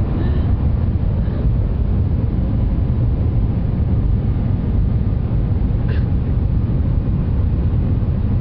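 Steady low rumble inside the passenger cabin of the Shanghai Maglev train running at high speed.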